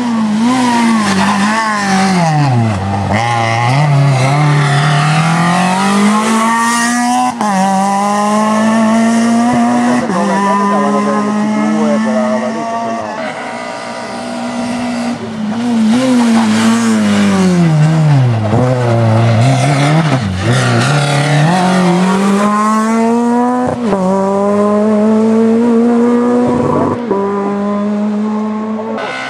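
Rally car engines at high revs, twice: a car brakes and drops down the gears into a hairpin, then accelerates away hard, its note climbing and dropping back with each upshift.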